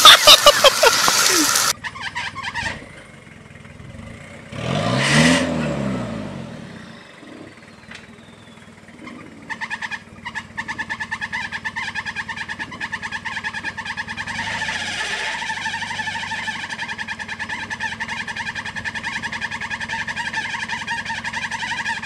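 Off-road truck engines. A loud pickup engine under hard throttle cuts off after about two seconds. An engine briefly revs up and back down about five seconds in, and from about ten seconds a Toyota Land Cruiser's engine runs steadily with a fast, even pulse as it crawls over rocks.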